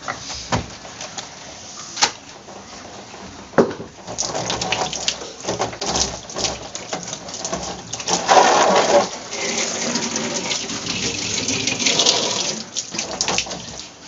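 Water from a hose spraying and splashing against the plastic inner door and liner of a refrigerator, rinsing it clean. A few sharp knocks of plastic being handled come first. The water starts about four seconds in and is loudest a little past the middle.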